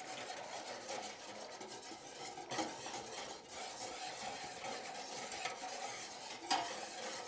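A wire whisk stirring turkey drippings in the roaster pan: a steady wet swishing, with a few light clicks of the wires against the pan.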